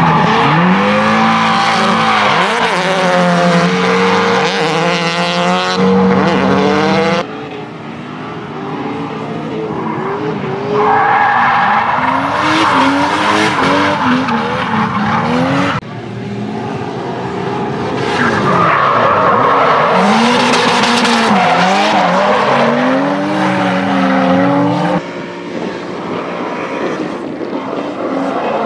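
Drift cars sliding sideways, engines revving up and down with tyres squealing. The sound changes abruptly about 7, 16 and 25 seconds in as one car's run gives way to another's.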